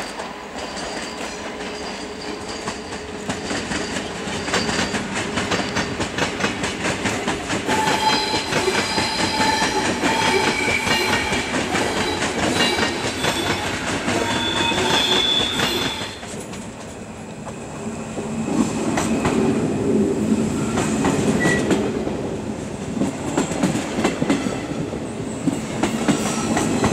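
SBB Re 460 electric locomotive and its Intercity coaches rolling through the station tracks: wheels clattering over the points, with steady high squealing tones partway through. About two-thirds of the way in the sound cuts to a RegionAlps regional electric train running alongside a platform, a lower rumble that builds.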